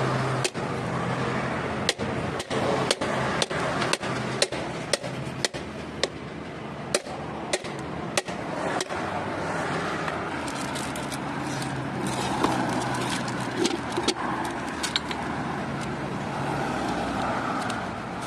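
A car running with a steady rolling noise. For the first nine seconds or so, sharp clicks or knocks come about every half second. After that only a few scattered clicks remain.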